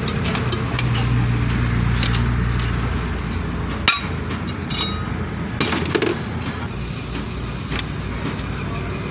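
A few sharp metal taps and clinks as a hammer knocks on the steel outer cylinder of a hydraulic bottle jack to free it, the loudest just before four seconds in. A steady low hum runs underneath for the first three seconds, then fades.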